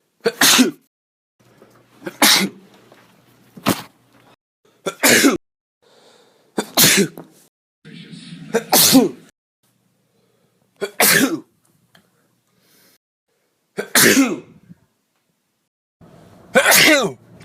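A person sneezing over and over, about eight or nine sharp sneezes, one every two seconds or so.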